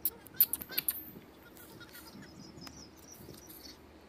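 Birds chirping: a quick cluster of sharp chirps in the first second, then fainter scattered chirps.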